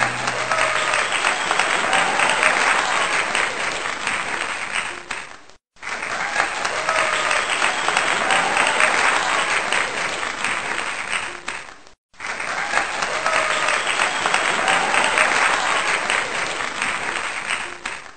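Crowd applause: a recording about six seconds long played three times over. Each pass fades a little and cuts out briefly before the next begins.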